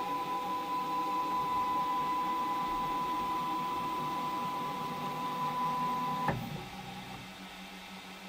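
Ooznest WorkBee CNC's X-axis stepper motors whining at one steady pitch as the router carriage travels along the axis, then stopping abruptly with a click about six seconds in. This is the X axis homing to its newly replaced limit switch.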